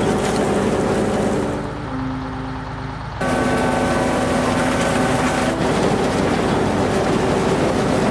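Cartoon sound effect of heavy farm machinery running steadily. It dips quieter for about a second and a half, then cuts back in suddenly.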